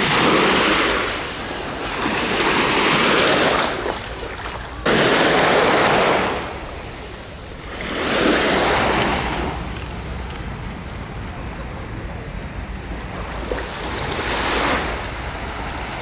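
Small waves washing up and back on a sandy shore, coming as a few rushing surges that swell and fade over a second or two. The strongest surge starts abruptly about five seconds in, and the wash is lower through the later part.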